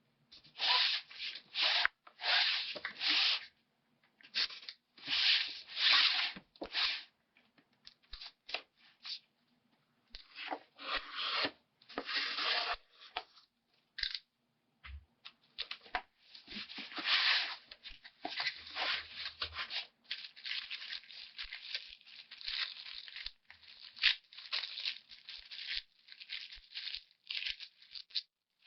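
Packaging of a boxed subwoofer being torn open and handled: repeated ragged tearing and rustling in bursts of up to a second or so, with short gaps between.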